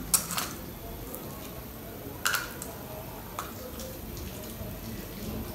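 A few short, sharp clicks and crackles as panipuri are filled: a steel spoon knocking against a steel bowl and against crisp, hollow puri shells. Two come close together near the start, a louder one just past two seconds in, and a small one about a second later.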